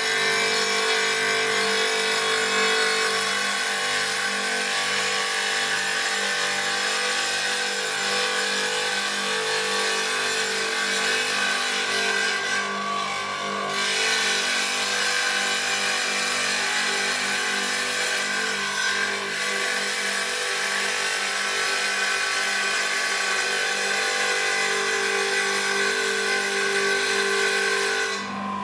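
Einhell TC-TC 618 wet tile saw running with its blade grinding through a ceramic tile fed at a 45-degree angle: a steady motor whine under gritty cutting noise, easing briefly about halfway through.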